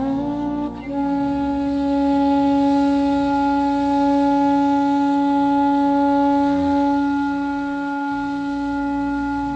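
Background score: a wind-instrument melody that moves briefly at the start, then holds one long steady note.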